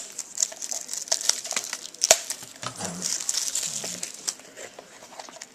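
Crinkling and tearing of trading-card packaging as a sealed card box is opened, with a run of sharp crackles and one loud snap about two seconds in.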